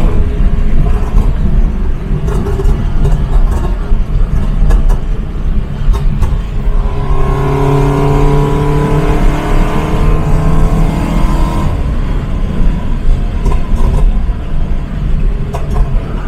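Toyota GT86's 2.0-litre flat-four engine heard from inside the cabin while driving, with a heavy rumble throughout. The engine note climbs under acceleration for a few seconds and drops off when the throttle is lifted. Its exhaust gives sharp pops and crackles from a pops-and-crackles tune, both before the pull and after it.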